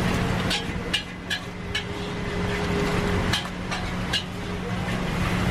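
Several short, sharp metallic clicks and taps of kitchen utensils over a steady low hum.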